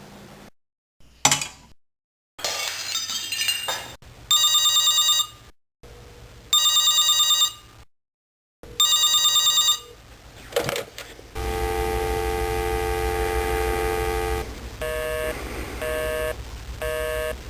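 A string of telephone sound effects: a click and a brief rattle, then a telephone bell ringing three times with even pauses, a handset click, a steady dial tone for about three seconds, and then a busy signal beeping about once a second.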